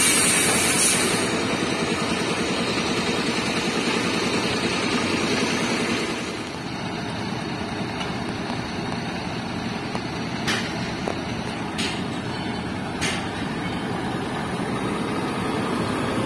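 Heavy diesel trucks idling steadily, with a short hiss right at the start and a few sharp clicks later on.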